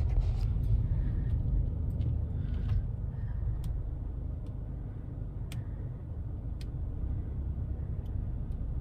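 Steady low rumble of a car driving, heard from inside the cabin, with a few faint, scattered clicks.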